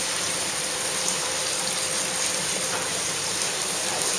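Steady rushing and splashing of water circulating through live-seafood holding tanks, with a faint steady hum underneath.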